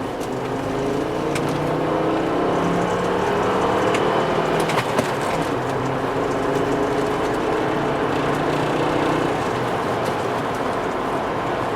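Volvo V70 T5's turbocharged five-cylinder engine pulling the car along the road, its pitch rising a little in the first few seconds and then holding steady, over tyre and road noise with a few light knocks.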